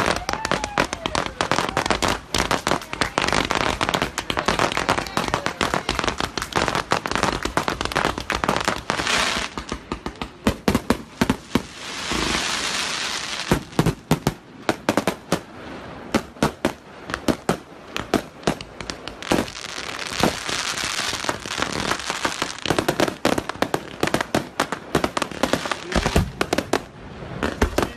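Fireworks display going off: a rapid, continuous run of bangs and pops. Two stretches of crackling hiss come in, about twelve seconds in and again about twenty seconds in.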